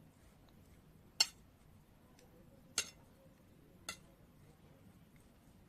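Three sharp clinks of a utensil against a bowl as salad is mixed, spaced a second or more apart, the first the loudest.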